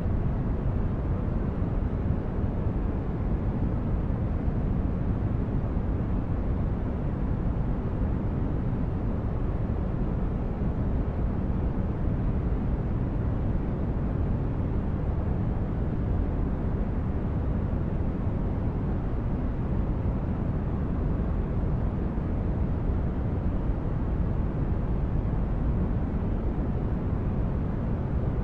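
Continuous, deep noise with no changes or events, heaviest in the bass and thinning out toward the top. This is a sleep-aid noise track of the rumbling kind rather than hissing white noise.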